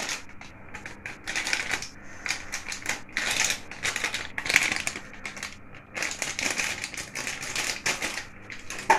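A spoon scraping and clicking against the cooking pot as vegetable soup, thickened with cornflour, is stirred, in rapid bursts with short pauses between them.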